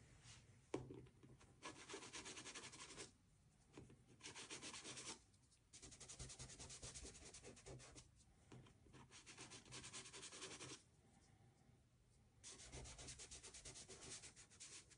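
Faint scratching and rubbing of soft pastel on paper, as a pastel stick and fingertips work and blend the pigment in quick strokes. It comes in several bursts with short pauses between them, and there is a single small tap about a second in.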